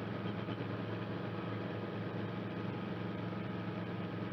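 Cabri G2 helicopter's four-cylinder piston engine and rotors running, a steady drone with a low, even hum and a fast rapid pulse throughout.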